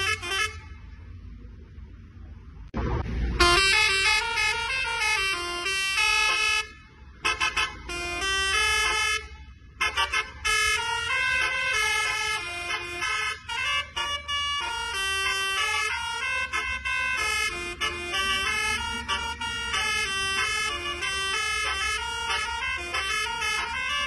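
Telolet horn on a Hino tour bus: a multi-trumpet musical air horn playing a fast tune of many stepping toots, starting about three seconds in after a short low rumble and pausing briefly a couple of times. A low engine hum runs underneath.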